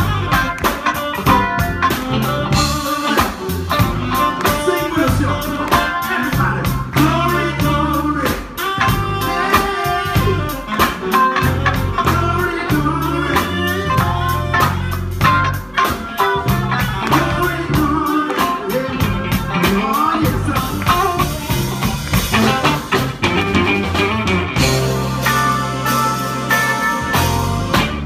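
Live blues-jazz band playing: saxophone over electric guitar, bass guitar and drum kit, with a steady bass line and a bending melody line.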